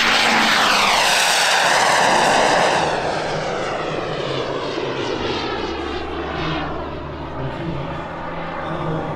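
JetCat P400 Pro model turbine jet engine of a large-scale RC Fiat G.91 passing low and fast, a loud jet roar with a whooshing sweep as it goes by. After about three seconds it turns quieter, the roar fading as the jet climbs away.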